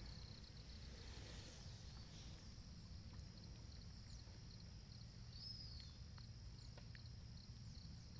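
Near silence: faint outdoor ambience with a quiet low rumble and a faint, high, evenly pulsing insect chirp.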